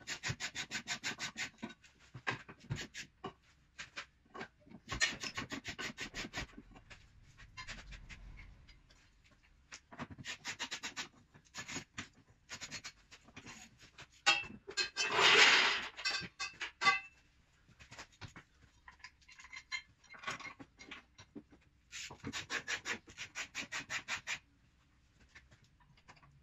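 Ratchet wrench clicking in quick runs of a second or two as the exhaust bracket bolts are tightened, several times over, with one louder scraping noise of about a second and a half midway.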